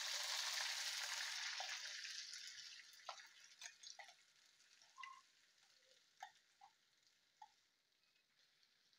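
Wet ground onion-tomato-chilli paste sizzling as it hits hot sesame oil in a clay pot: a loud hiss at first that dies away over several seconds, with scattered small clicks and pops.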